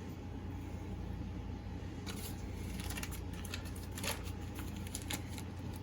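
Faint handling noises from mixing ingredients in a bowl: scattered light clicks and rustles, mostly in the second half, over a steady low hum.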